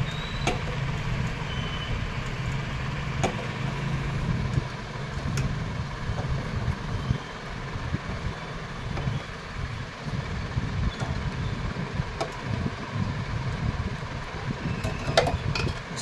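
A steady low mechanical rumble runs throughout. A few sharp clicks stand out over it as the refrigerator's copper refrigerant tubing at the compressor is cut and worked by hand.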